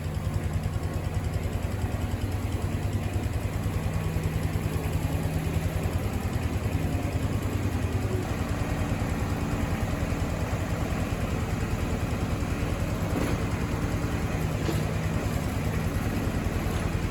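A vehicle engine running steadily at low speed, with an even, rapid pulse and no change in revs.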